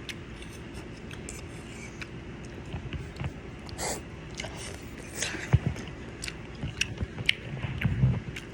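A person chewing egg close to the microphone: scattered short mouth clicks and smacks, with a few louder low thumps past the middle.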